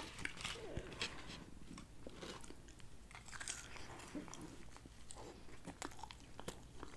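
A person chewing French fries close to the microphone, with many small mouth clicks and crackles, then biting into a cheeseburger near the end.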